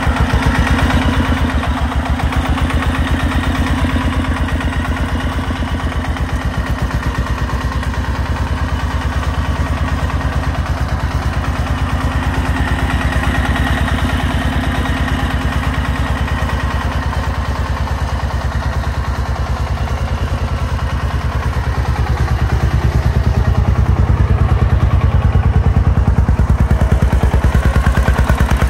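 Diesel engine of a công nông farm tractor-truck chugging steadily with a rapid even pulse as the truck drives loaded with soil, louder over the last few seconds.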